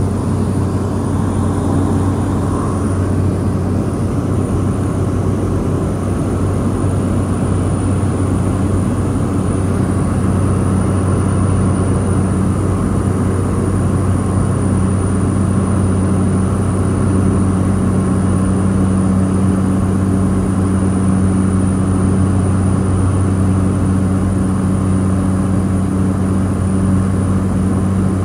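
Steady drone of a propeller airliner's engine and propeller: a low, unchanging hum with a second, higher hum over it.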